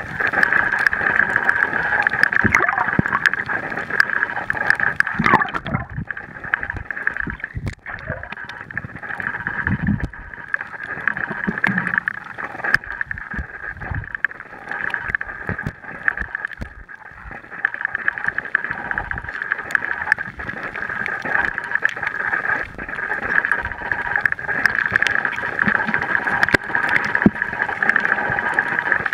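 Underwater ambience picked up by a submerged camera: a steady hiss with many small clicks and crackles and occasional low thumps.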